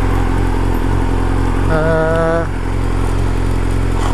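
Honda CBR600F inline-four engine running steadily under the rider, heard through its aftermarket Scorpion exhaust. A short wavering tone sounds briefly about halfway through.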